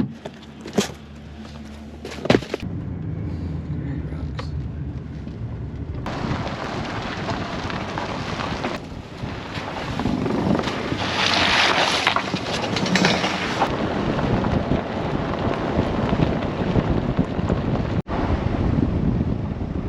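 Two sharp knocks in the first few seconds, then a vehicle driving along with steady engine, road and wind noise that grows louder partway through.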